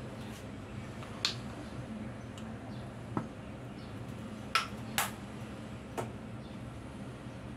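Five sharp clicks and taps of things handled on a table, spread over a few seconds and the two close together about five seconds in the loudest, over a steady low hum.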